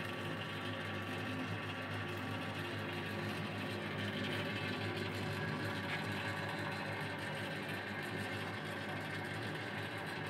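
Electric motor and drive of a SUNMIX two-speed spiral dough mixer running with a steady hum.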